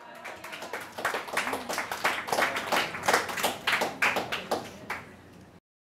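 Audience applauding, with many separate claps heard, thinning out near the end and then cutting off suddenly.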